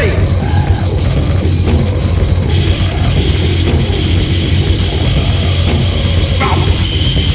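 Loud rock music: a band with drum kit playing hard and steady, with no singing.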